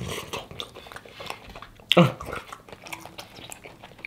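A person chewing fried chicken with wet lip smacks and small mouth clicks, and one short grunt falling in pitch about two seconds in.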